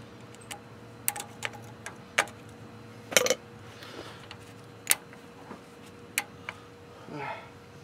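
Sharp metal clicks and clinks of snap ring pliers and a steel snap ring against a truck's front wheel hub and spindle parts as the ring is fitted. About a dozen separate ticks, spread irregularly, the loudest a short rattle about three seconds in.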